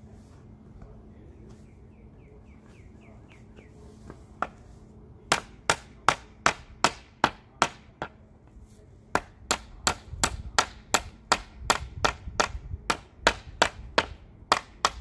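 Hammer driving nails into wooden raised-bed boards: sharp, evenly paced strikes about three a second. They start about five seconds in, stop briefly, then resume in a longer run.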